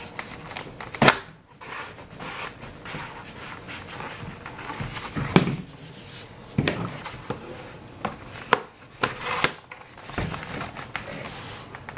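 Handling noise from assembling a foam RC jet model: the black wing spar rod sliding through the fuselage and a foam wing being fitted onto it, with scattered knocks, taps and rubbing of foam and plastic on the tabletop.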